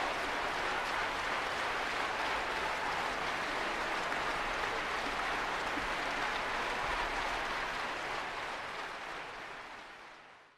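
A steady rushing noise, like applause, rain or surf, that fades out over the last two seconds or so.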